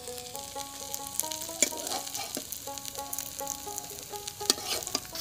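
Brinjal (eggplant) slices frying in refined white oil in a pan: a steady sizzle with a couple of sharp clicks, under a simple background melody.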